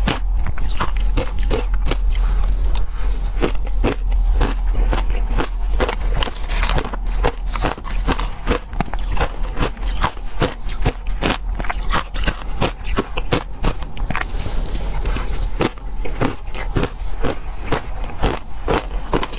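A person biting and chewing shaved ice close to the microphone: a dense, continuous run of sharp crunches, several a second.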